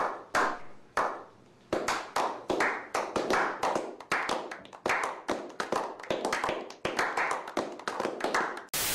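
Slow clap by a small group of people: a few single, spaced hand claps that quickly build into faster, overlapping applause. A short burst of hiss cuts in near the end.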